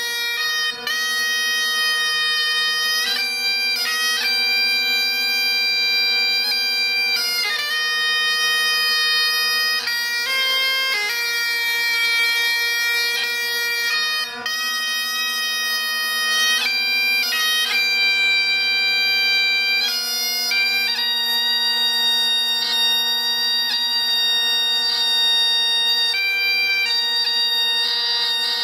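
Bagpipes playing a melody over their steady drones.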